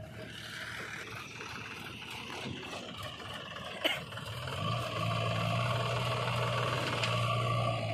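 Diesel engine of a Sonalika farm tractor running under load as it hauls a loaded trolley. The engine note grows steadier and louder about halfway through as the tractor comes close, and there is a single sharp click about four seconds in.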